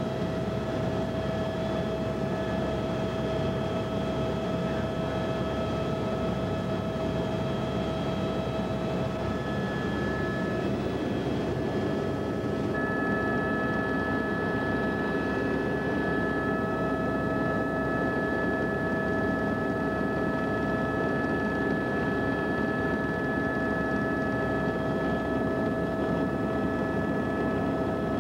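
Steady cabin noise of a passenger aircraft in flight: engine drone and rushing air, with a few steady whining tones. About halfway through, the whine shifts to a higher pitch.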